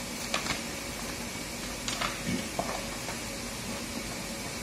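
Paper and cardboard packaging being handled: a few brief rustles and taps, over a steady room hiss.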